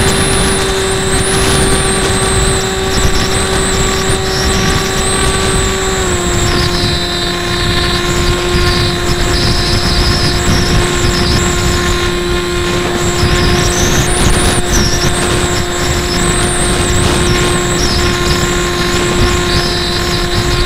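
Hobbyking Breeze FPV model plane's electric motor and propeller whining at a steady pitch under power, which drops a little about six seconds in as the throttle eases. Constant wind rush over the onboard camera's microphone.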